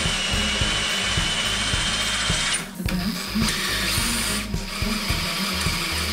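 Cordless drill boring into the sheet steel of a car's front frame rail: a steady high whine and hiss, stopping briefly about two and a half seconds in, then starting again for a second run.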